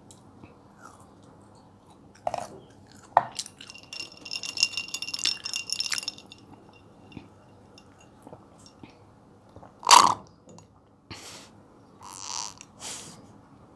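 Close-miked eating and drinking sounds: mango jelly being chewed and iced orange juice sipped from a glass. Ice cubes clink against the glass with a ringing sound from about three to six seconds in, and short swallowing or sipping sounds come later.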